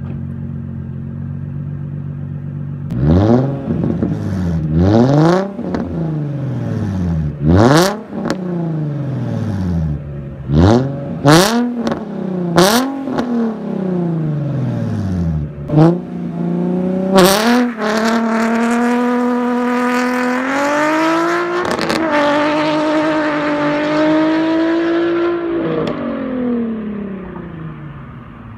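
2008 Nissan 350Z's 3.5-litre VQ35HR V6, straight-piped, idling and then blipped in about seven sharp revs with cracks at several of the peaks. It then pulls away hard, rising in pitch through two gear changes, and fades as the car drives off.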